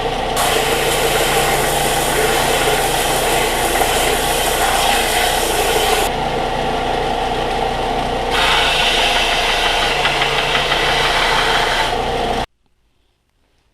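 Electric woodworking power tool running while a piece of hickory is worked into an axe wedge: a steady motor hum, with a harsh hiss added twice as the wood is pressed into it. The sound cuts off abruptly near the end.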